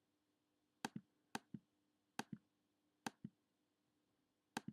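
Computer mouse button clicks, each a quick press-and-release pair, five times at uneven intervals, over a faint steady hum.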